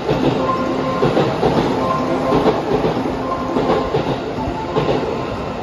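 Tokyo Metro 15000 series subway train moving along the platform close by, its wheels clicking over the rail joints under a steady electric tone. It gets a little quieter near the end.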